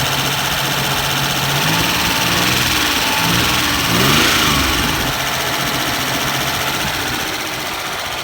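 The freshly rebuilt 3.0-litre V6 of a 1993 Mitsubishi 3000GT SL running loud on its first start, its speed rising and falling back around the middle. The timing is right and there is no knocking; the owner suspects an exhaust leak.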